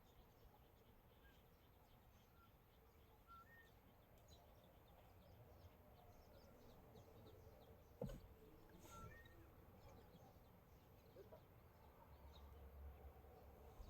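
Near silence: faint outdoor ambience with a few brief bird chirps and a single sharp knock about eight seconds in.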